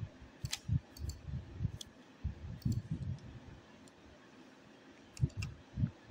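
Computer mouse clicks: several scattered single clicks with soft low thumps, bunched in the first two seconds and again near the end.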